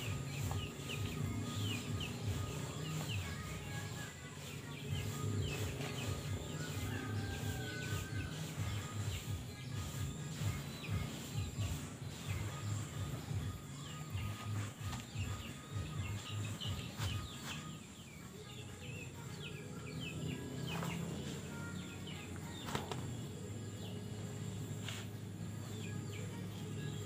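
Garden ambience: many short bird chirps over a low, uneven hum.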